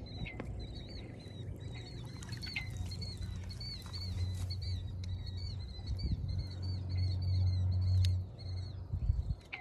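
Wind buffeting the microphone in a low rumble that swells through the middle and drops off suddenly near the end, under a steady series of short high chirping calls, several a second, from a small animal.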